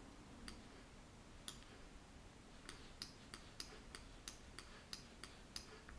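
Faint computer mouse clicks over near-silent room tone: two single clicks, then from about halfway a quick run of clicks, about three a second.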